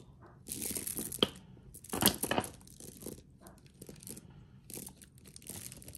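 Rustling and clinking of a double-strand necklace being handled and arranged, in two main bursts with a sharp click about a second in, the louder burst about two seconds in, then a few faint ticks.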